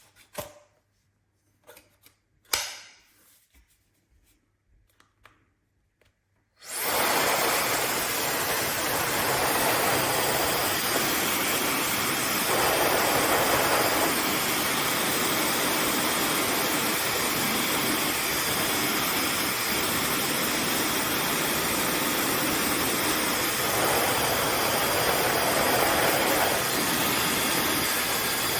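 A few handling clicks and knocks, then about six and a half seconds in a handheld hair dryer switches on and runs steadily with a loud rush of air. The air noise swells twice, around the middle and again near the end.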